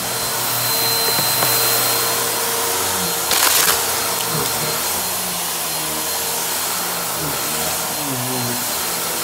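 Upright vacuum cleaner running steadily with a motor whine as it is pushed over a low-pile rug. It gives a brief louder burst a little over three seconds in.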